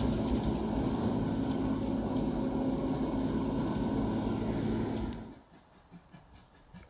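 Diesel shunting locomotive's engine running steadily while it moves off with a rake of coaches. The sound cuts off abruptly about five seconds in, leaving only faint, quiet background.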